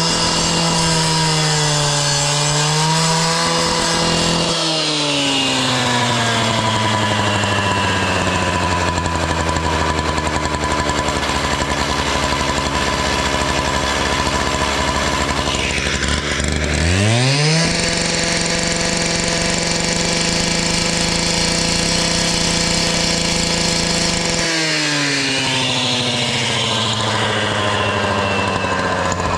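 Petrol disc cutter (cut-off saw) for cutting paving stone, its two-stroke engine running at full throttle. About four seconds in the throttle is let off and the engine winds down to a steady idle. About seventeen seconds in it is revved sharply back to full speed, held there, and let back down to idle near the end.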